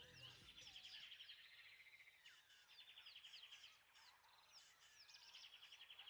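Faint wild bird calls: short downward chirps and rapid trills repeating, laid in as a nature-sound bed. The last of the music dies away in the first second.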